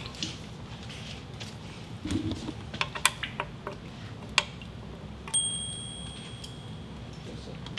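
A few sharp light clicks and clinks, then a bright ringing chime-like tone that starts suddenly and holds for about two seconds.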